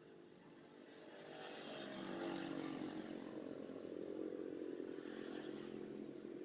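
Homemade mini two-stroke engine, converted from a refrigerator compressor and fitted with a rubber radiator-hose expansion-chamber exhaust, running. It grows louder over the first couple of seconds, then runs steadily.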